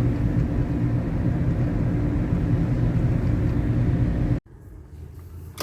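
Steady low drone of a taxi cab running, heard from inside the cabin. About four seconds in it cuts off abruptly to a much quieter interior.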